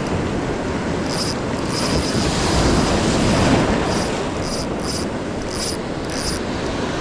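Surf washing and wind on the microphone, with a run of about eight short, high-pitched chirps from the fishing reel as a large halibut is fought in to the beach.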